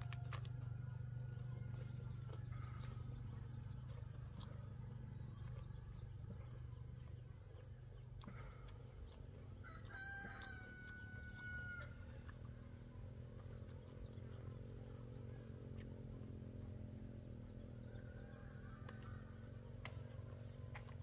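A rooster crowing, once near the start and again about ten seconds in with a long held call, over a steady low hum.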